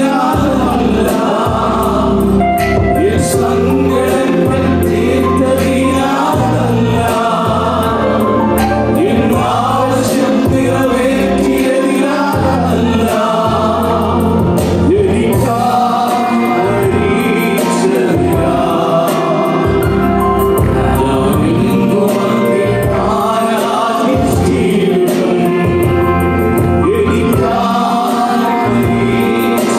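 Several men singing a gospel worship song together into microphones over musical accompaniment, with sustained low notes running under the voices.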